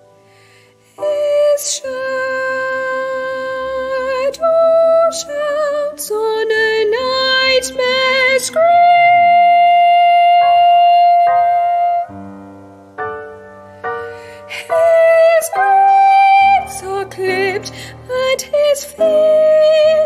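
Soprano singing a slow art song with vibrato over piano accompaniment, including one long held high note midway.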